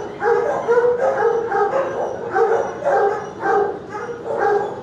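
Dog barking repeatedly in a shelter kennel, about three short barks a second.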